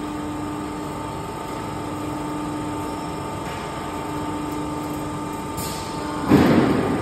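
Fire extinguisher cabinet forming machine running with a steady hum holding a few steady tones as its bending station folds a galvanized steel box. About six seconds in comes a sudden loud rushing burst.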